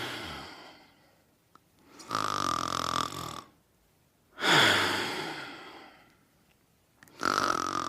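A sleeper snoring: slow, noisy breaths about a second long with short silent gaps between them, some carrying a faint whistling note. The loudest starts sharply about four and a half seconds in and fades away.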